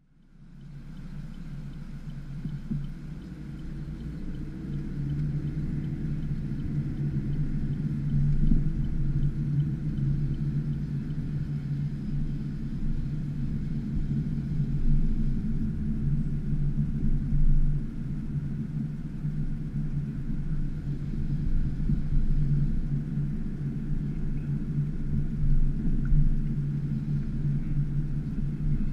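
A car driving, heard from inside the cabin: a steady low engine and road drone that fades in over the first few seconds.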